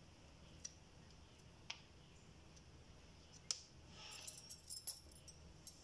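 Faint, sparse clicks of a kitchen knife tip picking seeds out of halved limes, with small lime seeds dropping onto a plastic tray. There are a few single clicks, then a short run of small ticks about four seconds in, over near silence.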